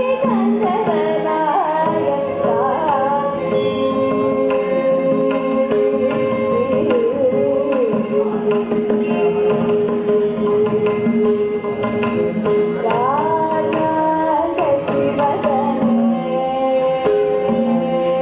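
Carnatic vocal music: a young woman singing with gliding, ornamented held notes, accompanied by violin and mridangam drum strokes.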